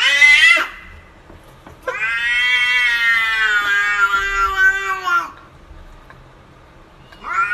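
Domestic cat meowing: a short rising meow at the start, then one long drawn-out meow of about three seconds, and another meow starting right at the end.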